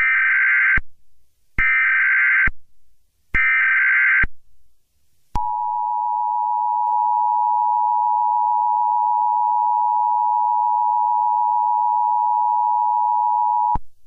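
Emergency Alert System header: three short bursts of SAME data tones, each under a second long with short gaps between them, then after a brief pause a steady attention tone held for about eight seconds that stops abruptly. The header announces a Civil Emergency Message.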